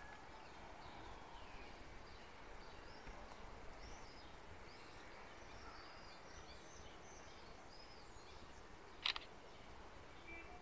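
Faint small birds chirping and twittering over outdoor background noise. About nine seconds in, a short, sharp double click: the phone camera's shutter sound as a photo is taken.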